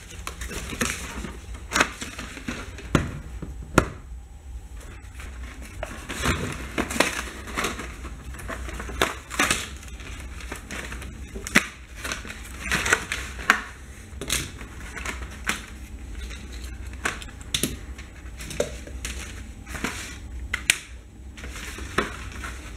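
Cardboard toy packaging being handled and torn open: irregular crinkling and rustling with sharp clicks, over a low steady hum.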